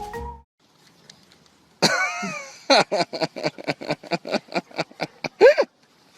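A dog vocalizing: a short call that bends in pitch, then a fast run of short yelps, about six a second, ending in one louder yelp. Music cuts off at the very start.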